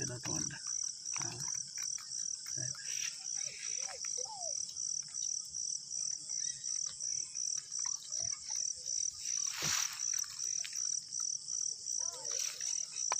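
A cricket chirping steadily in a high, even pulse, about three chirps a second. Scattered rustles come from wet weeds and fish being handled on a plastic tarp, with a louder one about ten seconds in.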